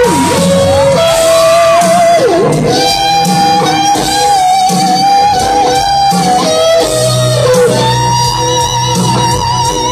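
Live rock band music: a lead solo on a gold-top Les Paul electric guitar, held notes with vibrato and bends, over the band's backing, heard through a stadium PA.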